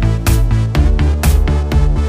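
Electronic dance music with a steady beat, drum hits about twice a second over a heavy bass line.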